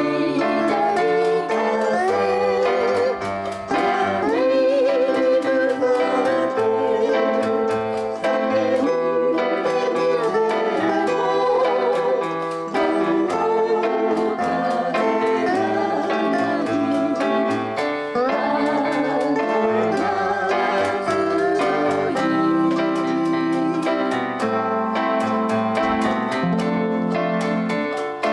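Hawaiian band playing live: a steel guitar carries the melody with wavering, sliding notes over ukulele, keyboard and bongos.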